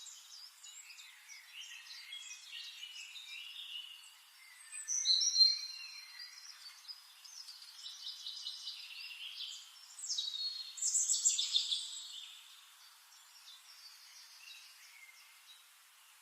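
Several songbirds chirping and singing, with a louder song phrase about five seconds in and a louder run of notes around ten to twelve seconds in.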